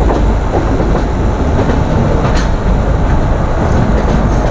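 Express train running along the track, heard from aboard a moving coach: a steady rumble of wheels on rails with a few sharp clicks.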